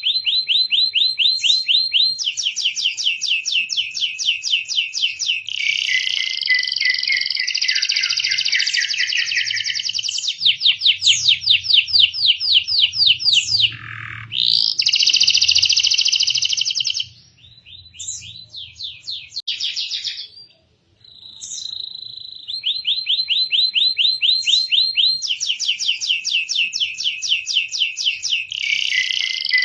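Canary singing long, rapid trills and rolls, some high and some lower, with a falling glide about halfway through and a short, broken lull a few seconds later before the fast trills resume.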